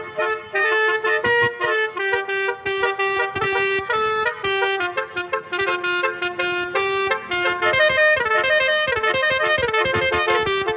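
Telolet-style musical bus horn, a basuri horn, playing a quick melody of short notes that step up and down in a buzzy tone, with sharp clicks between the notes.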